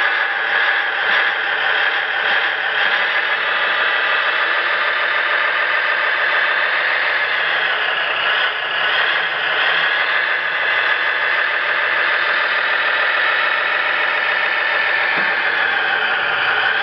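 Simulated engine sound from an SMX sound module in an RC Jeep Wrangler, played through a small speaker with almost no bass. It runs steadily and swells slightly a couple of times.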